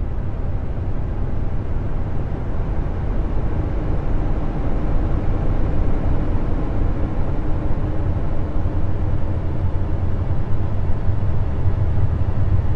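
A steady, deep rumble, loudest in the bass and without a clear pitch, swelling slightly over the first few seconds.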